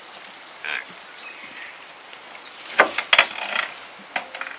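A short bird call less than a second in, then a quick run of sharp clattering knocks a little under three seconds in, with a few lighter knocks near the end.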